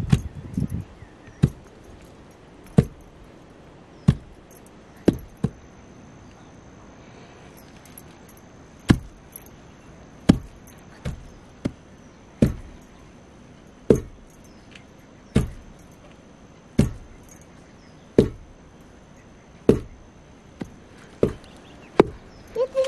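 Long wooden pestle pounding in a tall wooden mortar: a sharp thud about every second and a half, with a pause of about three seconds a quarter of the way in. Rice is being pounded into flour for sel roti.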